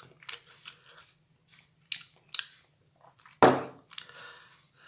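A person chewing microwaved mushrooms with short wet mouth smacks, then one louder short vocal sound about three and a half seconds in.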